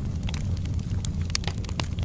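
Wood fire burning in a fireplace: a steady low rumble of flames with frequent sharp crackles and pops of burning logs, one louder pop about one and a half seconds in.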